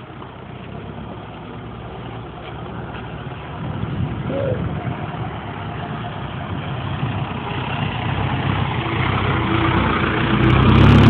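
A motor vehicle's engine running, growing steadily louder and strongest near the end.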